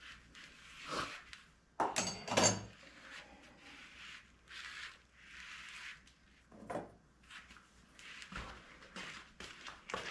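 Wooden parts knocking and being handled on a workbench: a few sharp knocks about two seconds in, then several short rubbing strokes and lighter taps.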